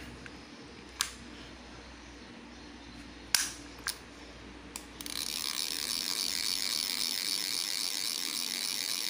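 Zorro Wanu baitcasting reel being worked by hand: a few separate clicks, then about five seconds in a steady, fast ratcheting buzz from the reel's mechanism as the handle is spun.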